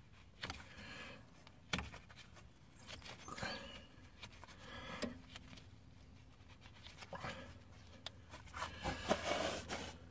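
Faint, scattered clicks and scrapes of hand work on a rusty Jaguar XF front brake caliper as its top guide pin is worked out, a stiff pin that has not been out for a long while. Short breathy huffs come and go between the clicks.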